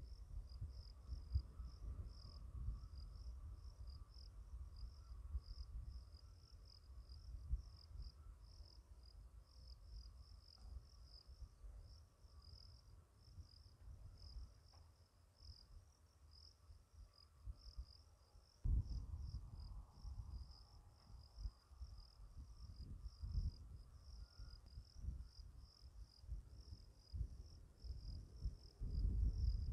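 Insects in the grass chirring in a fast, pulsing, high-pitched trill that keeps going. Under it, wind rumbles on the microphone, gusting about two-thirds of the way through and again near the end.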